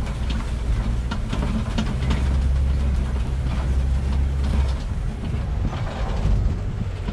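Open-sided safari truck driving over a rough dirt track: a steady low engine drone, heaviest for a few seconds in the middle, with the truck's body and fittings rattling and clicking over the bumps.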